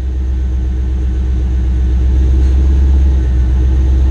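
Holden Commodore SS ute's LS V8 idling steadily with a deep exhaust rumble, just after start-up. The exhaust runs a free-flowing decat pipe in place of the catalytic converters.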